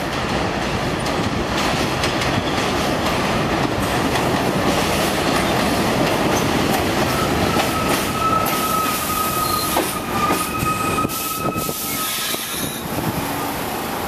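R46 subway train pulling into the station, its wheels rumbling on the rails with some clicking over the rail joints. About halfway through, a high steady squeal sets in as it brakes and slows to a stop.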